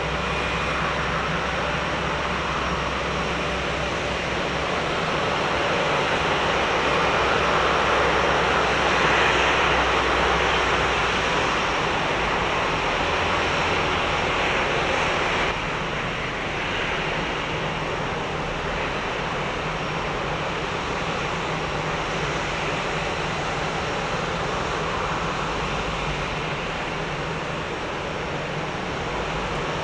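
Twin Pratt & Whitney PW1100G geared turbofans of an Airbus A321neo running at taxi power, a steady jet hum that swells as the airliner rolls past. About halfway through it drops suddenly to a slightly lower, still-steady level.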